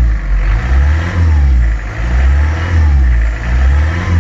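Isuzu C223T 2.2-litre turbo diesel, freshly rebuilt, running and heard from inside the cab. It is a deep, loud rumble with a higher note that rises and falls about every second and a half.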